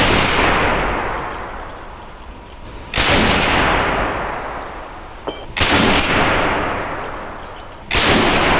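Four heavy gunshot booms about two and a half seconds apart, each starting suddenly and dying away slowly over about two seconds, from slow-motion rifle firing footage.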